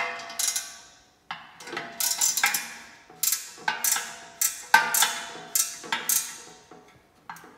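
A 14 mm ratcheting wrench working a bolt on a steel vending-machine spill tray: sharp metallic clinks and clanks, about two a second, each ringing on briefly in the sheet-metal tray.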